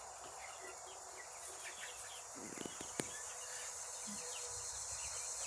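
A steady, high-pitched chorus of insects, with faint short chirps throughout and a single sharp click about three seconds in.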